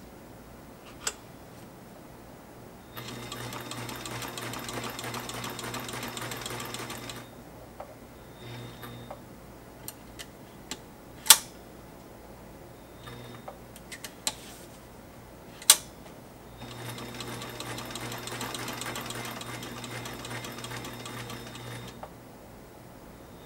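Sailrite LSZ-1 walking-foot sewing machine, driven by a WorkerB Power Pack motor, stitching a test piece of fabric in two runs of about four and five seconds each: a fast, even stitch rhythm over the motor's hum, with a couple of short spurts between the runs. Several sharp clicks fall between the runs; the two loudest come about eleven and sixteen seconds in.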